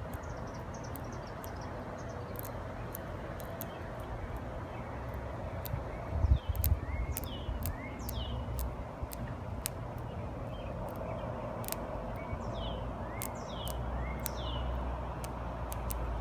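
Outdoor ambience: a small bird gives quick falling chirps in twos and threes, in two bouts, over a steady low rumble with scattered faint clicks.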